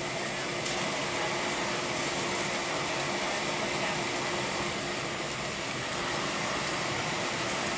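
Airbus A320 cabin noise on the ground: a steady airy hiss from the cabin air system with a constant low hum underneath, holding an even level without rising or falling.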